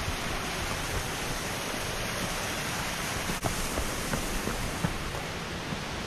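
Steady rushing of a mountain stream's cascades and waterfall pools, with a few light footsteps on the trail.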